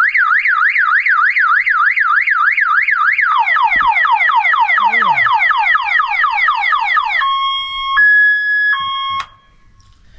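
Loud electronic multi-tone alarm siren on a travel trailer under test. It runs through its tones: first a fast up-and-down warble about three times a second, then from about three seconds in a quicker run of falling chirps, then a slow two-tone high-low alternation. It cuts off suddenly about nine seconds in.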